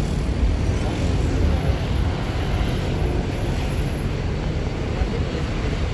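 Steady low rumble of road traffic, with heavy vehicles passing close by.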